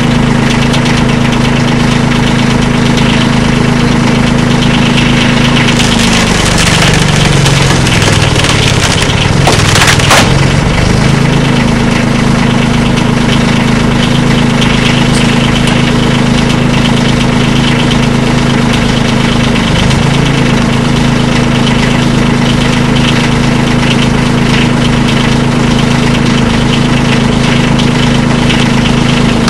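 Engine powering a hydraulic wood shear, running steadily. About six seconds in it bogs down under load as the blade presses into a log. Around ten seconds in the wood cracks and splinters as the log shears through, and the engine then picks back up to speed.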